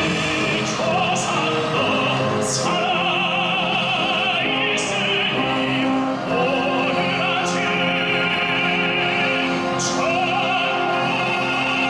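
A solo voice singing long phrases with a wide vibrato in operatic style, over a military concert band, with short breaths between phrases.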